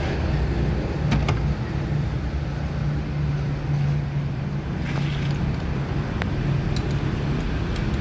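Honda Civic engine sound: a steady mechanical hum with a few light clicks over it.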